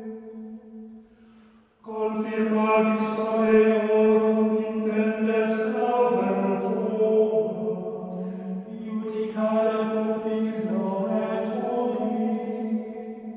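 Latin psalm verse chanted on long, steady reciting notes with small steps in pitch. The chant breaks off briefly about a second in, then resumes and continues.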